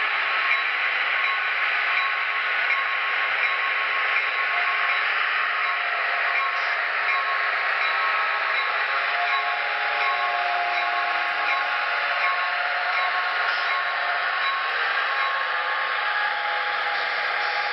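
Onboard sound systems of BLI Paragon 4 N scale EMD F3 model diesel locomotives playing diesel prime-mover sound through their tiny speakers, along with the model train running on the track. The sound is steady and thin, with no bass.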